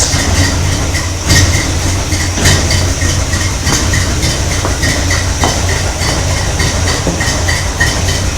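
Chevy 350 small-block V8 with a stage 2 cam idling through dual Flowmaster mufflers, a steady rhythmic exhaust pulse, with a couple of sharper knocks in the first few seconds.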